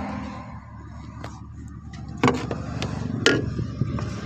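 A few sharp clicks and knocks, spaced about a second apart, of a replacement engine control module and its wiring plug being handled and fitted into a Tata Nano, over a steady low hum.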